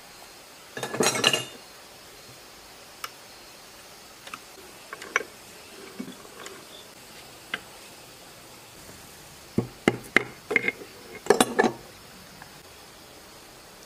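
Metal engine parts and hand tools clinking and knocking on a workbench while a greasy single-cylinder engine block is taken apart: a short rattling clatter about a second in, a few scattered light clinks, then a run of sharp knocks and clinks near the end.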